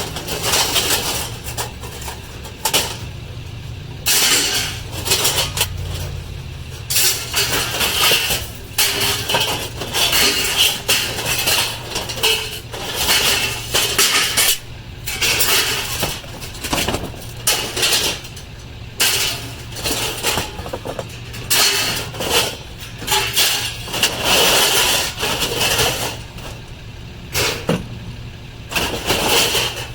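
Metal pieces clanking and rattling in frequent irregular bursts over the steady low hum of a running vehicle engine.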